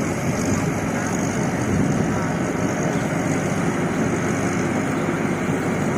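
Rice combine harvester running steadily, its engine giving a constant hum under the noise of the machine.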